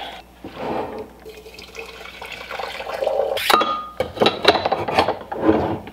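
Water pouring into a French press for about three seconds, then a sharp clink and the plunger being pushed down with scraping clicks.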